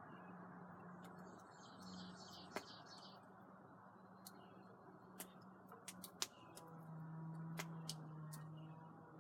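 Campfire crackling quietly, with sharp irregular pops and snaps over a faint steady hum and hiss. Faint bird chirps come through about a second in.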